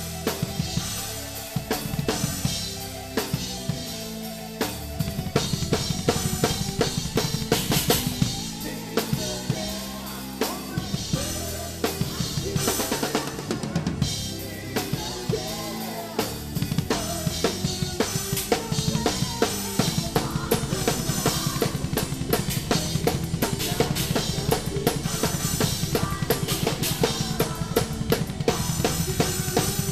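Drum kit played live in a progressive metal song: bass drum, snare and cymbals in a fast, busy pattern over the rest of the band. About twenty seconds in the bass drum strokes grow dense and rapid.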